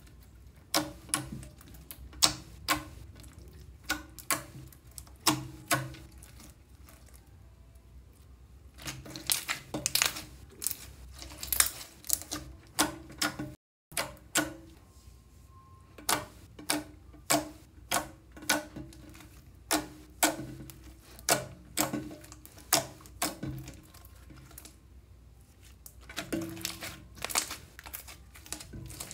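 Hands squeezing, poking and stretching sticky red clear slime, making an irregular string of wet clicks and pops, often several a second, with a brief silent break about halfway.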